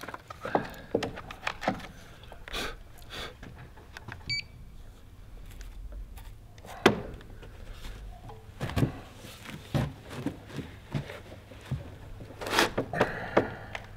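Scattered light knocks, clicks and rattles as an aluminium grade rod is handled, raised and set against the wooden ledger board. There is one short high beep about four seconds in, and a quick cluster of knocks near the end.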